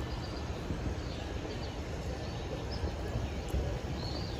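Outdoor woodland ambience: a steady rustling hiss over low rumble, with a few faint short high chirps.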